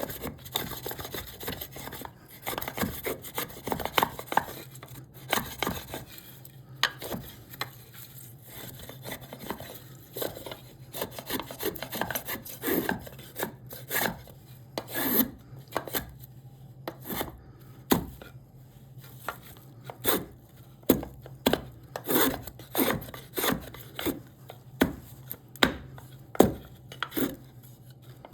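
Hand tool cutting into cherry wood in short, irregular strokes, roughly one to two a second, each a brief scrape-and-knock, over a faint steady low hum.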